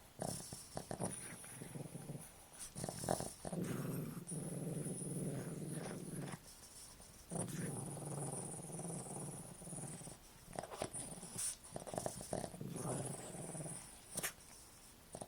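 Boston terrier snoring hard in its sleep: long rasping snores of two or three seconds each, with shorter snorts and sharp snuffling clicks between them.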